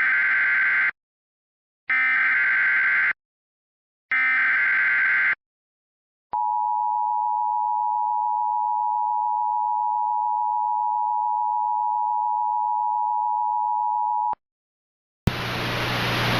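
Emergency Alert System SAME header: three identical bursts of warbling digital data, about a second each and two seconds apart. After a pause comes the EAS two-tone attention signal, one steady dual tone held for about eight seconds before it cuts off sharply, announcing a flash flood warning. A hiss starts about a second before the end.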